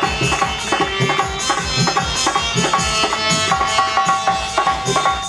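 Instrumental interlude of rasiya folk music: a quick, steady hand-drum beat under a sustained melody line.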